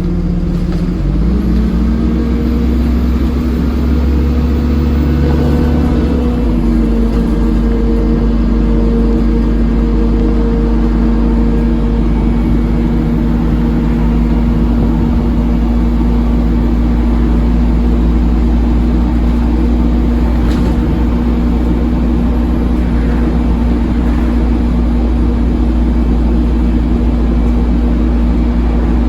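Dennis Dart SLF bus with an Allison 4-speed automatic gearbox, heard on board: its engine and drivetrain drone with a loud, steady hum like a hoover. The pitch steps up about a second in, shifts again at about six seconds, then holds steady as the bus cruises.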